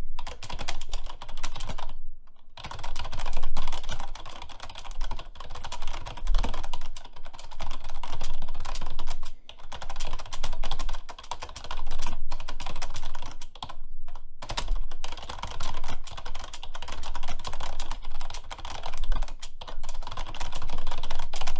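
Fast, continuous typing on a computer keyboard at speed-test pace (about 127 words per minute), a dense stream of key clicks broken by brief pauses about two seconds in and again around fourteen seconds.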